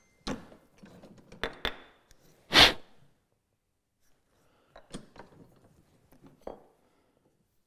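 Wooden clamp parts and hand tools being handled on a workbench: a few short knocks and clatters, the loudest about two and a half seconds in, then a pause and some lighter knocks.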